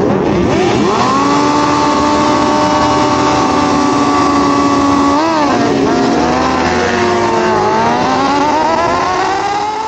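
Sportbike engine running at high revs, holding a steady pitch, then dipping briefly about five seconds in and climbing steadily again as it accelerates.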